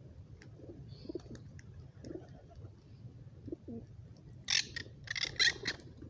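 Flock of feral rock pigeons cooing softly, in short low notes. Loud harsh bursts break in about four and a half seconds in and again near the end.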